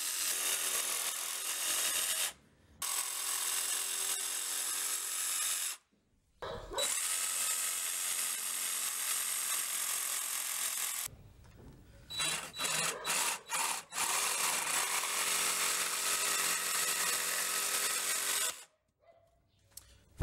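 Electric jigsaw cutting through red cedar: the motor runs steadily with the blade sawing the wood. It stops briefly twice, pulses on and off a few times in quick succession about halfway through, then runs again and switches off near the end.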